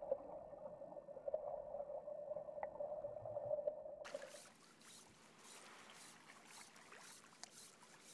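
Muffled underwater sound with a wavering drone, cut off sharply about four seconds in. It gives way to faint soft swishes of fly line being stripped in by hand in short, fast pulls.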